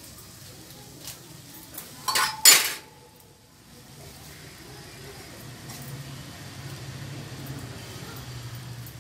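Water boiling in an open aluminium pressure cooker on a gas stove, a steady low bubbling. A little over two seconds in comes a short, loud metallic clatter of kitchen utensils with a brief ring, the loudest sound.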